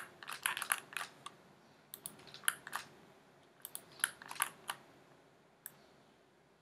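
Computer mouse and keyboard clicking in several quick clusters, with a faint steady room hum underneath.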